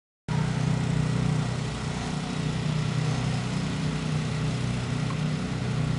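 Steady engine noise that cuts in abruptly about a third of a second in and runs on without much change.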